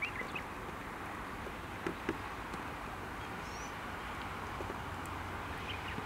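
Outdoor ambience: a steady background hiss with a few short, distant bird chirps at the start and a brief high whistled glide midway. Two soft knocks come about two seconds in.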